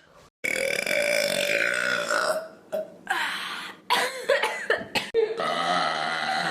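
A person burping several times in a row. First comes one long drawn-out burp of nearly two seconds, then several shorter, choppier burps, and near the end another long held burp.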